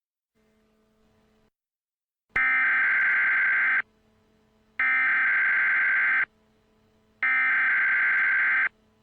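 Emergency Alert System SAME header: three identical bursts of buzzing digital data tones, each about a second and a half long with about a second's pause between, starting about two seconds in. They mark the start of an emergency alert broadcast. A faint low hum lies under the pauses.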